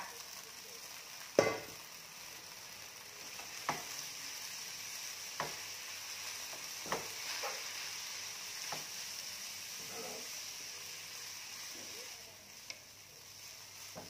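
Rice vermicelli noodles sizzling as they stir-fry in a pan, a steady hiss broken by several sharp knocks of a wooden spatula against the pan, the loudest about a second and a half in. The sizzle eases slightly near the end.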